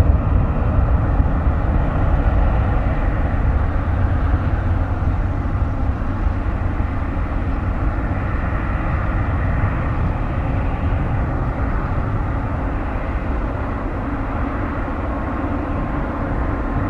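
Boeing 767-300F's twin GE CF6-80C2 turbofan engines at high power on the takeoff roll: a steady deep jet rumble with a faint whine, slowly fading as the aircraft moves away.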